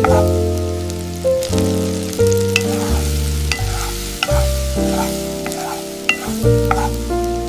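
Rice frying in a pan, a steady sizzle with stirring, under gentle background music of held chords and bass notes that change every second or so.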